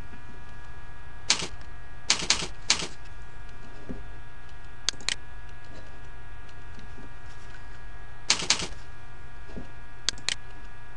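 Computer keyboard typing in several short bursts of key clicks, over a steady electrical hum.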